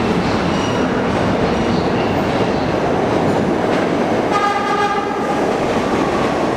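NYC subway R62-series train approaching along the platform, with steady wheel-on-rail noise throughout. A short horn blast sounds about four and a half seconds in.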